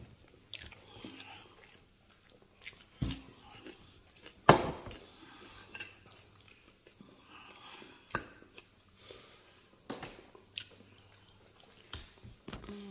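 Chewing, with a few sharp clinks of a metal fork against a ceramic plate; the loudest clink comes about four and a half seconds in.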